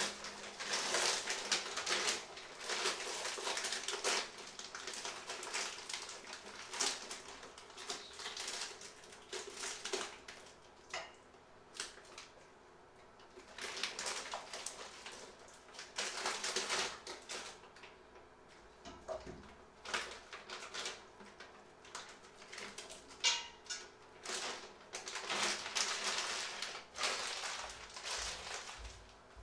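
Thin plastic bag crinkling and rustling in irregular bursts as it is handled and opened.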